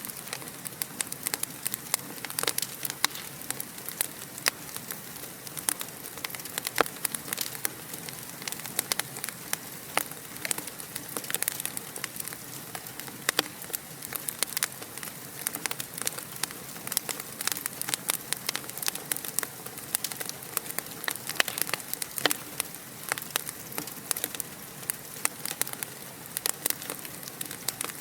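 Wood fire crackling steadily, with a constant soft hiss and many irregular sharp pops and snaps.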